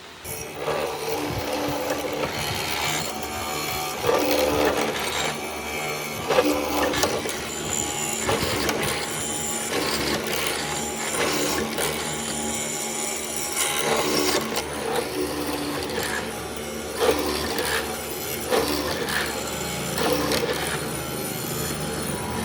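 Tools working wood, with irregular scraping strokes and knocks throughout.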